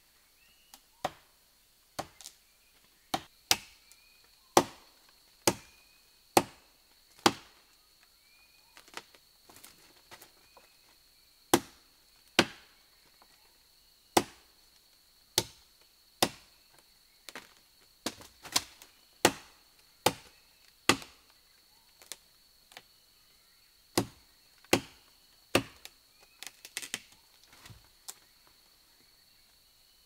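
Machete blows chopping into wood, sharp single strikes roughly once a second, some in quick pairs, with a steady high insect drone behind them.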